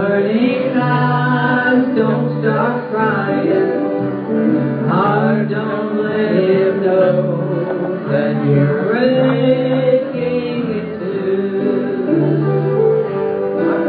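Live string band music: acoustic guitars playing over a bass line of repeated low notes, with a voice singing.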